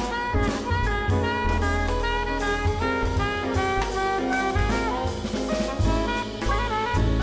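Jazz band playing live: a horn solos in quick runs of notes over a bass line and a drum kit with cymbals.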